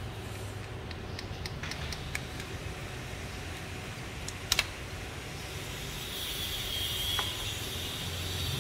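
Small metallic clicks and taps of a hand tool working on an automatic transmission's valve body, with a loud double click about four and a half seconds in, over a steady low hum. A hiss comes in about six seconds in.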